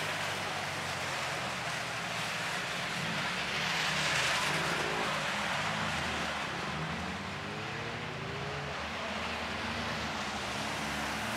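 Several front-wheel-drive skid cars racing: engines running and revving under a steady hiss of steel skid plates scraping along the asphalt. The noise swells about four seconds in.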